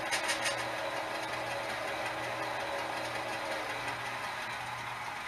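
Diesel engine idle sound played by the model locomotives' DCC sound decoders through small onboard speakers: a steady low hum, with a few light clicks at the start.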